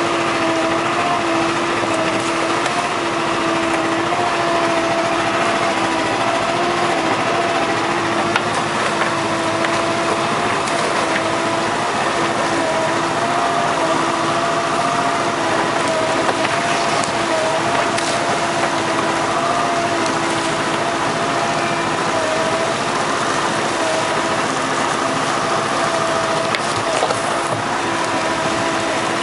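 Outboard motor running steadily as the lobster boat cruises under way, a constant drone with an unchanging pitch.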